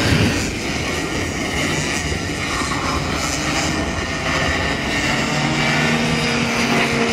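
Several two-stroke racing kart engines running as a pack of karts races past on track. A steadier engine note comes in about five seconds in.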